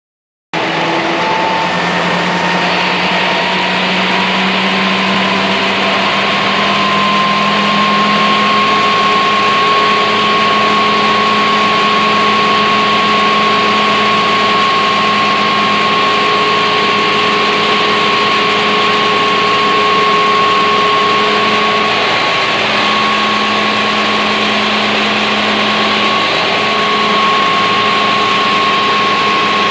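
Smeal pumper's fire pump and diesel engine running under load: a steady drone with a high whine over a rushing hiss, the pitch rising a little in the first few seconds as the engine is throttled up to about 1,100 rpm, then holding. The pump is cavitating.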